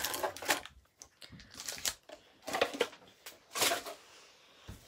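Foil trading-card packs crinkling and rustling in the hands as they are handled and opened, in several short bursts, with a soft low thump near the end.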